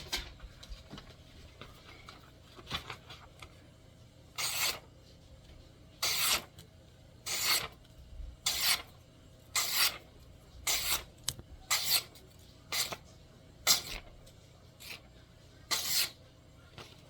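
A hamaguri (convex) ground custom chopper knife making about eleven quick slicing cuts through a material, one scraping swish roughly every second, as a sharpness test.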